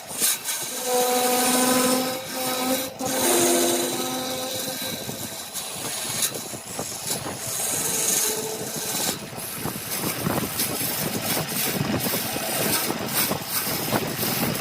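Wood lathe running with a tool working the spinning workpiece: a humming tone in the first few seconds that steps up in pitch, then a steady rough scraping noise.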